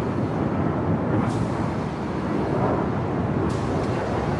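Sukhoi Su-30SM twin-engine fighter jet flying a display manoeuvre overhead: steady jet engine noise that holds an even level throughout.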